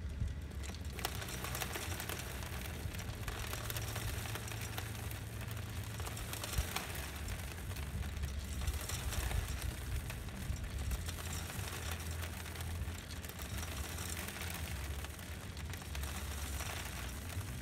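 Motor of an automatic hopper feeder switching on and running steadily, a low hum with fine rattling as feed trickles out of the dispenser and patters into the metal trough below.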